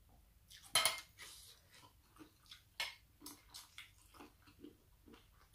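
A person chewing and smacking on a mouthful of rice noodles and salad greens, heard close up as a run of short, irregular mouth clicks, with a louder sharp sound about a second in and another near three seconds.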